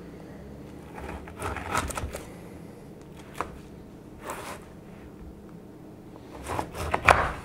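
Kitchen knife cutting through a slab of baked granola bars on a cutting board: a few scattered crunches and knocks of the blade on the board, the loudest cluster near the end.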